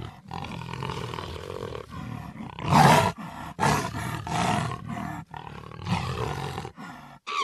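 Jaguar roaring in a series of deep, rough calls separated by short pauses, the loudest about three seconds in.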